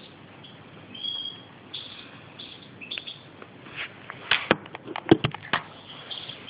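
Caged European goldfinch giving short, high twittering chirps. About four seconds in, a quick run of sharp clicks and knocks, the loudest sounds here, as the phone filming it is handled and moved.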